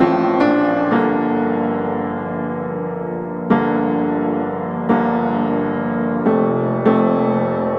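Background piano music: slow sustained chords, a new one struck every second or two.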